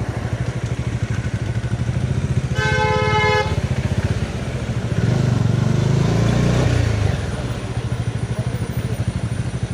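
Bajaj Dominar 400's single-cylinder engine running with a steady low pulse while riding. A vehicle horn sounds for about a second, a few seconds in, and louder engine noise swells and fades around the middle.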